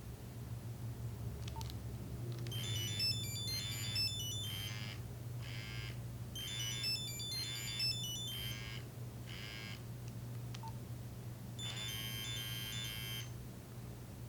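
Nokia 3395 phone playing ringtone previews through its small speaker: a quick beeping tune of single high notes plays twice, and a short click is followed by a different beeping tune near the end. A steady low hum runs underneath.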